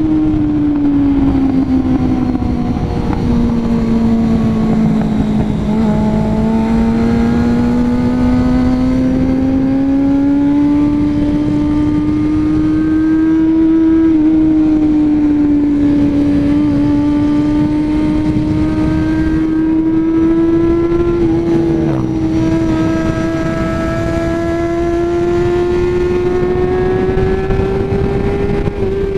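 Honda CB400 Super Four's inline-four engine pulling in second gear up a winding climb. Its note sags for a few seconds near the start, then rises steadily with small dips as the rider holds the throttle open. A rush of wind runs under it, with a brief knock about 22 seconds in.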